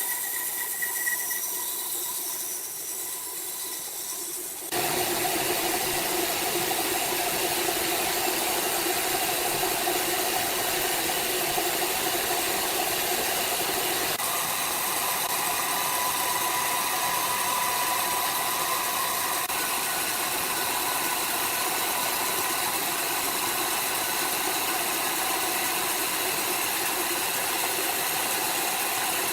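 Sawmill machinery running: a loud, steady mechanical noise with an engine drone. It comes in suddenly about five seconds in, after a quieter, hissy start.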